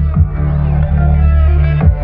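Electronic music with heavy, steady bass and a kick beat, played through a DIY 8-inch transmission-line subwoofer whose cone is visibly moving.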